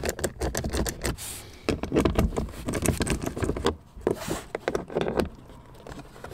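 Small socket ratchet clicking in quick runs as it backs out the 8 mm screws holding a rear deck speaker, with short pauses between runs and a quieter stretch near the end.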